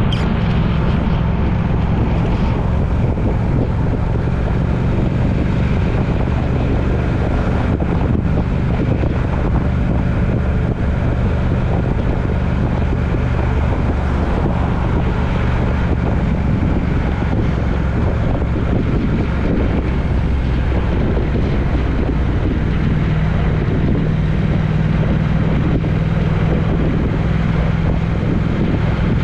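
Steady drone of a road vehicle travelling: a low engine hum under road and wind noise, its pitch shifting slightly now and then.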